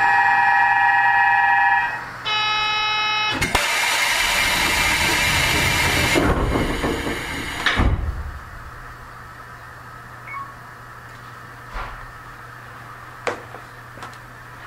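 On board a Seibu 8500 series Leo Liner train, electronic chime tones sound, then a click and about four seconds of hissing ending in a thud as the doors slide shut. After that the stopped car gives only a low steady hum with a few faint clicks.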